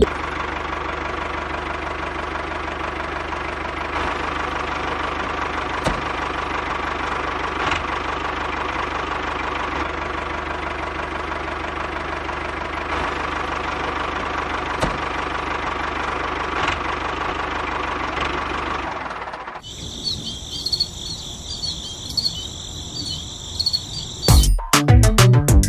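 Small electric motor and gears of a homemade toy tractor running steadily, with occasional light ticks. The motor stops with about six seconds to go. A high chirping sound follows, then music with a beat comes in near the end.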